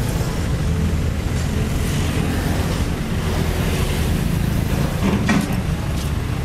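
Caterpillar 320D2 L excavator's diesel engine running steadily as the machine works. About five seconds in there is a short clatter of stones as the bucket meets the gravel pile.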